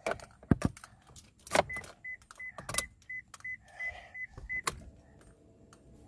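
Clicks and knocks of handling inside a Perodua Myvi SE's cabin, with the car's warning chime beeping about three times a second for around three seconds in the middle. A faint steady hum follows near the end, with the dashboard lit and the engine not yet started.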